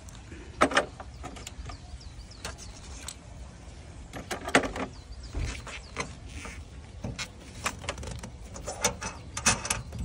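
Irregular metallic clicks and knocks of a copper refrigerant pipe and its brass flare nut being handled and fitted to an air conditioner outdoor unit's brass service valve, over a low background rumble.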